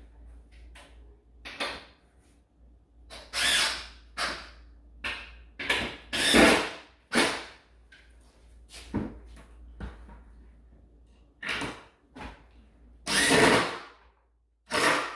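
Handheld power drill driving screws into a wooden table end section, run in a series of short trigger bursts, each under about a second, with brief pauses between them.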